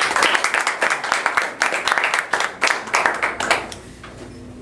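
Audience applauding, the claps thinning out and dying away near the end.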